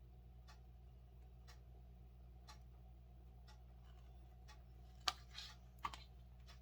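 A clock ticking faintly, about once a second, over a steady low hum. Near the end come a few sharper clicks and a short rustle of handling.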